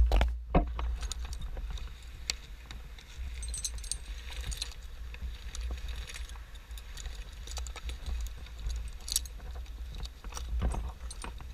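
Scattered light metallic clinks and clicks of climbing hardware being handled over a steady low rumble, with a sharp knock at the start and another about half a second in.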